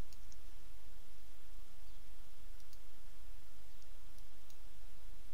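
A few faint computer mouse clicks over a steady low hum.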